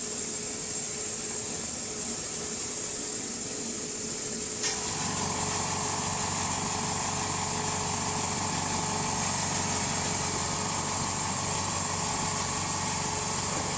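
Steady high hiss. About five seconds in, a click, then a small machine starts a steady hum that keeps going.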